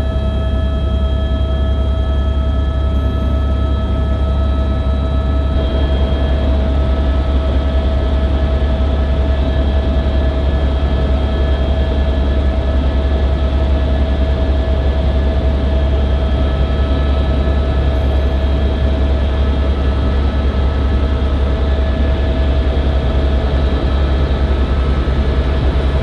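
Helicopter cabin noise in level flight: a steady, loud, deep rotor drone with a steady whine above it. A rushing noise grows somewhat louder about five seconds in.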